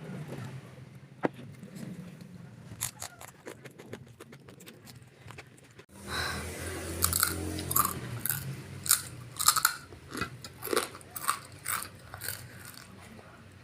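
Close-miked mukbang eating: a person biting and chewing crunchy food, with crisp crunches, louder and more frequent in the second half.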